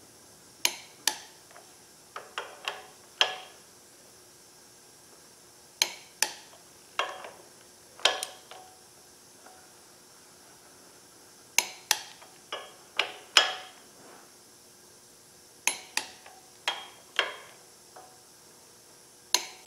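Sharp metallic clicks in small groups, a few seconds apart, from a click-type torque wrench ratcheting and clicking over as the flywheel bolts are tightened to 40 foot-pounds.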